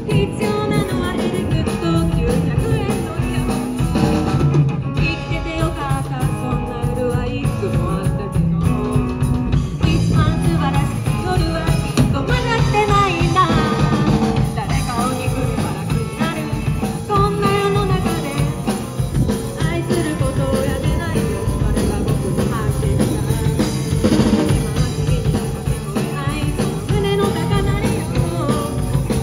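A rock trio playing live through amplifiers: electric guitar, electric bass and drum kit, with a steady beat throughout.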